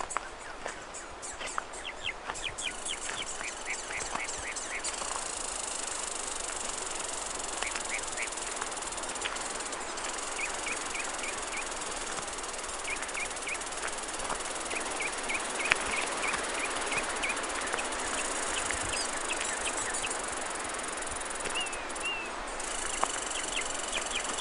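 Strong wind through forest trees, a steady rushing hiss of leaves. Short chirped calls of a northern mockingbird come in small groups of two to four notes throughout, and light footsteps tick in the first few seconds.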